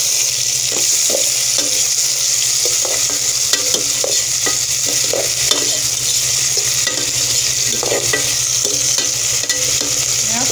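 Diced tomatoes and onions sizzling in hot oil in a metal pot, with a spatula scraping and stirring against the pot in short, irregular strokes.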